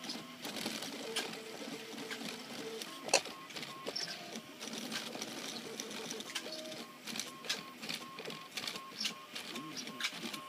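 RepRap Mendel 3D printer's stepper motors whining in a pulsing tone that shifts pitch a few times as the direct-drive extruder and print head work through a PLA print. Scattered sharp clicks and taps run through it, the loudest about three seconds in.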